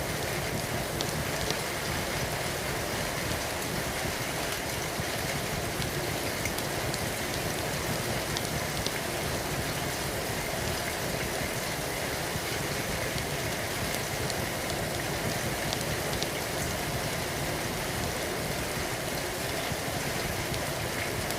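Steady rain falling, an even hiss with scattered small ticks.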